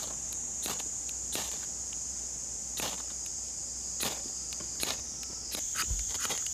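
Ferro rod scraped with a metal striker to throw sparks into dry grass tinder: short sharp rasps about a second apart, coming quicker near the end. Under it, jungle insects keep up a steady high drone.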